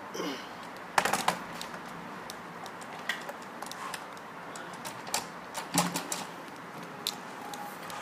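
Irregular clicks and knocks of metal lock parts being handled and fitted against a door panel, as a smart lock's outer handle unit is set onto its spindle; the loudest knocks come about a second in and again near six seconds.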